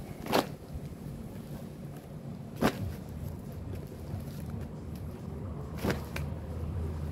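Corrugated cardboard boxes crunching and creasing as they are pressed and folded flat by hand and body weight on concrete. There are three sharp crunches, near the start, in the middle and near the end, over a steady low rumble.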